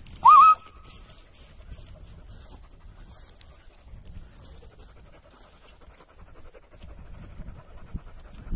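A person's loud, short whistle near the start, sliding up and wavering, a call to a lost dog. Then dogs panting close by.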